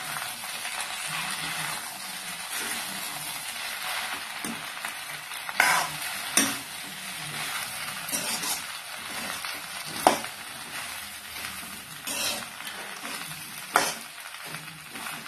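Boiled macaroni and sautéed vegetables being stirred and tossed in a hot frying pan with a metal spoon: a steady sizzle with the spoon scraping through the food, and several sharp knocks of the spoon against the pan.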